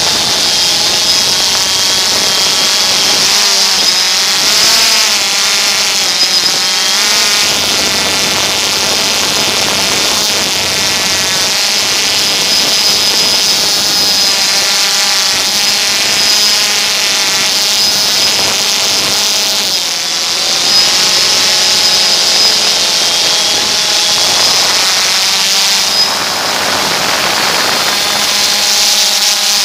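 DJI Phantom 2 quadcopter's electric motors and propellers whining steadily, heard from the camera on board. The pitch wavers up and down as the motors change speed while the drone climbs.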